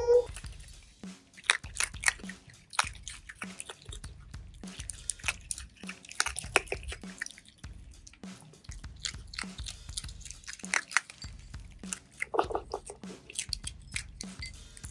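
Asian small-clawed otter chewing and crunching its food close to the microphone, with irregular wet, crisp bites, and one short call about twelve and a half seconds in.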